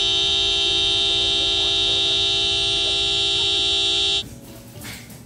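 Car horn sounding as a dog in the driver's seat leans on the steering wheel: one long steady honk of about four seconds that cuts off suddenly.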